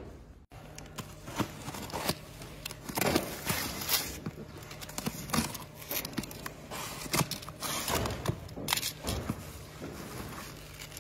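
Cardboard box being opened and rummaged through by hand: flaps scraping and plastic packaging crinkling in a run of irregular rustles and light knocks, over a faint steady low hum.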